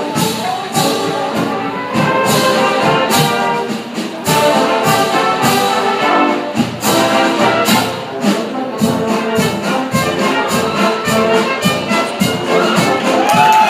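Marching brass band playing, trumpets and trombones carrying the tune over a steady beat of marching drums. Near the end, shouting and cheering from a crowd begins over the music.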